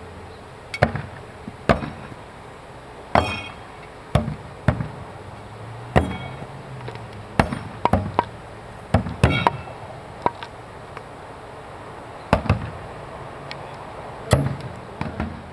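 Thrown blades striking targets: about fifteen sharp hits at uneven intervals, some in quick pairs, a few ringing briefly after the strike.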